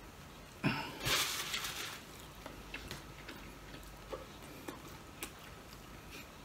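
A person eating by hand: a short breathy hiss about a second in, then quiet chewing with scattered small clicks of fingers and food against a plate.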